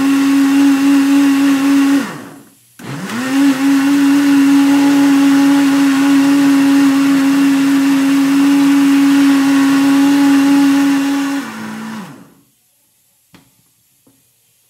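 Countertop blender blending milk with crumbled peanut candy, its motor running at a steady high pitch. It stops about two seconds in, starts again with a rising whine, then drops in pitch and stops about twelve seconds in.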